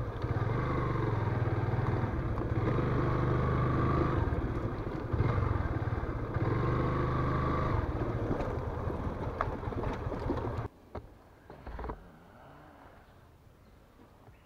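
Yamaha FZS V2 motorcycle's single-cylinder engine running at low speed as the bike rolls along a dirt path, its pitch rising and falling a little with the throttle. About ten seconds in the engine sound cuts off abruptly, followed by a couple of knocks.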